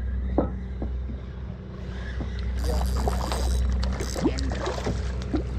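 A boat's engine running with a steady low hum.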